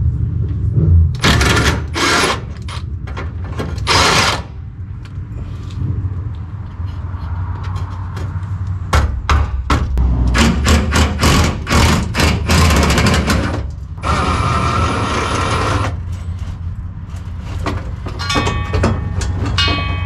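Short bursts of a power tool and knocks of metal as the fuel tank hardware is unbolted and lowered from under a pickup, with one steady two-second run of the tool about fourteen seconds in.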